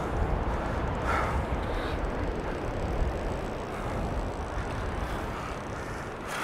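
Strong wind blowing across a clip-on microphone: a steady low rumbling buffet.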